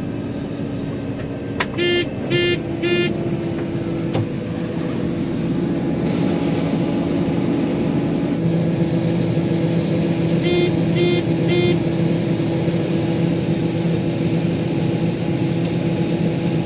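John Deere 9500 combine running steadily, a constant drone, with two sets of three short beeps, about two seconds in and again near the middle.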